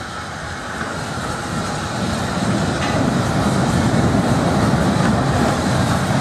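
Small steam tank locomotive running in along the rails, its rumble growing steadily louder as it approaches and then holding.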